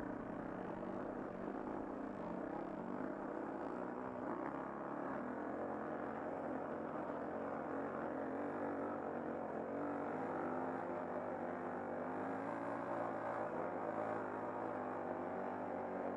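Dirt bike engine running as the bike rides along a rocky single-track trail, heard from a helmet-mounted camera; the engine's pitch shifts up and down with the throttle.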